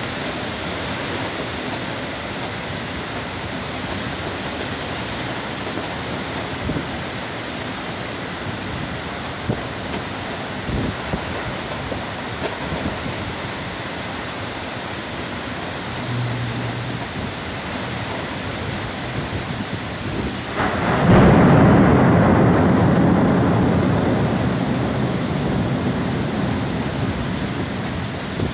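Heavy thunderstorm rain hissing steadily. A little past two-thirds of the way through, a loud clap of thunder breaks in and rumbles, fading slowly over several seconds.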